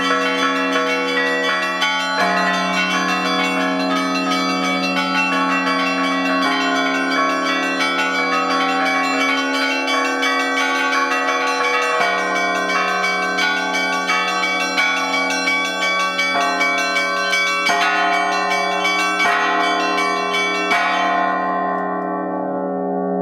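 Russian Orthodox church bells rung all together by one ringer: many bells struck in a quick, dense pattern over a deep bell's steady hum. The strikes stop about three seconds before the end, leaving the bells ringing out.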